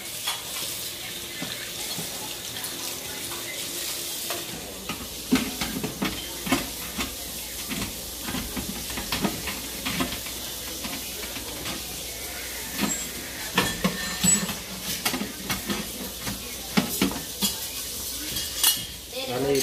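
Air fryer trays and parts being washed at a kitchen sink: a steady hiss of running water with frequent clatters and knocks of the trays against the sink and each other.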